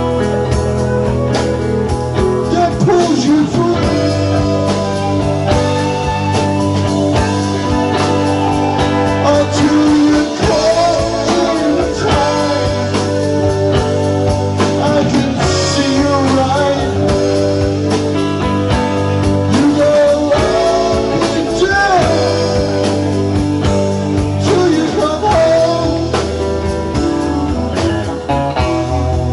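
A live band playing a song: electric bass, Nord Electro keyboard, drum kit and electric guitar, with a voice singing over it at times.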